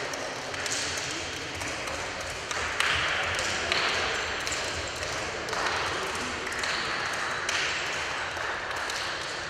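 Echoing ambience of an indoor futsal hall: indistinct voices and a few sharp taps, the two sharpest about three and four seconds in, over a steady hiss.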